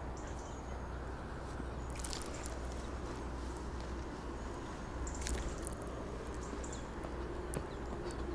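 Quiet outdoor background with a low rumble and two brief rustles, about two and five seconds in.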